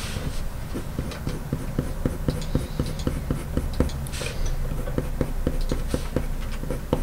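Coloured pencil flicking short fur strokes on paper, a quick scratchy tick with each stroke at about four a second.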